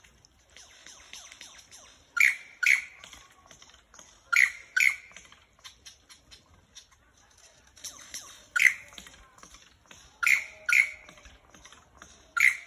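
Male superb lyrebird calling loudly. Sharp notes come mostly in pairs about half a second apart, repeated every two seconds or so, with softer chirps in between.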